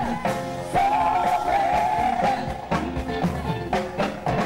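Live rock band playing amplified music on stage, with a steady drum beat and a held, wavering melody line over it.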